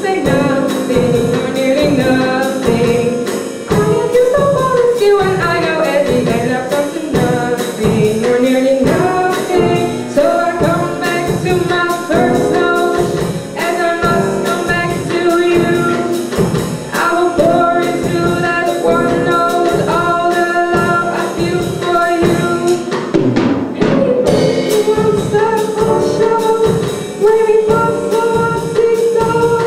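Small jazz band playing a samba: a woman singing over piano and drum kit, with a steady beat. Near the end the music drops back briefly and a long held note follows.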